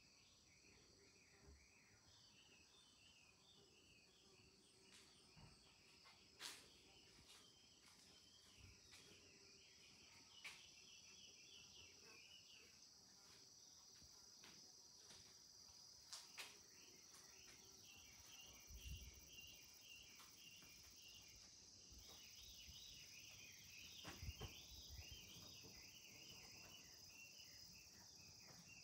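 Faint rural ambience: insects trilling steadily and high, with chirping that keeps coming and going, and a few soft clicks and low knocks.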